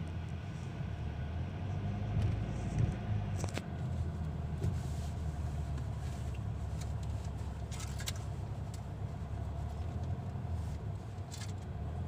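Car cabin noise while driving slowly: a steady low rumble of engine and tyres, with a few faint clicks.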